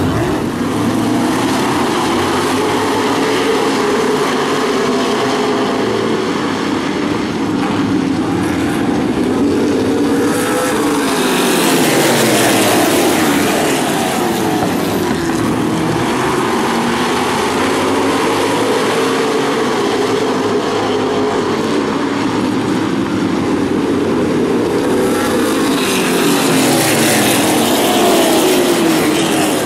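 A field of open wheel modified race cars running laps, many engines at racing speed rising and falling in pitch as they pass. The sound swells loudest twice, about fifteen seconds apart, as the pack goes by close.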